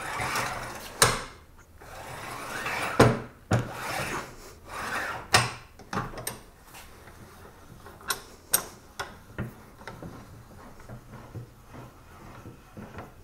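Workbench end vise being cranked open by its bar handle: the screw and pine jaw rub and slide, with sharp clicks and knocks from the handle and jaw, several in the first half, then fainter ticks.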